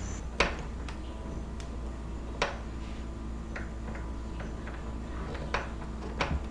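A screwdriver driving the screws of a new doorknob set back in: three sharp clicks, spaced a couple of seconds apart, with fainter ticks between, over a low steady hum.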